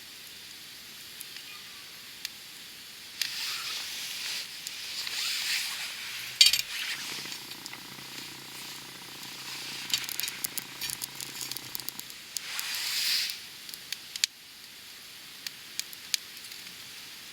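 Wood campfire burning: hissing and sizzling from the logs in two stretches, with scattered crackles and one sharp pop about six and a half seconds in. A faint, steady low hum sits underneath for several seconds in the middle.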